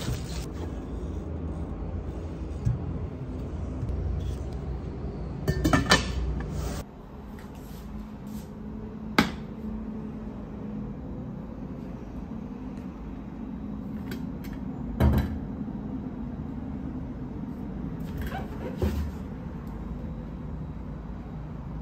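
Stainless steel cookware being handled: a handful of separate knocks and clinks as lids and pots are moved and set down, the sharpest about nine seconds in, over a steady low hum. Plastic wrapping rustles in the first few seconds.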